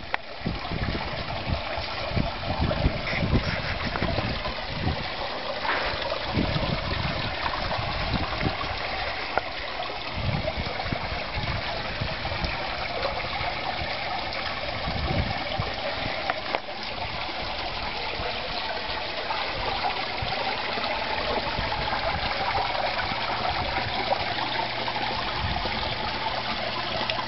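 Garden pond fountain spraying, its water splashing steadily onto the pond surface with a constant trickling hiss. Low, uneven rumbles come and go beneath it.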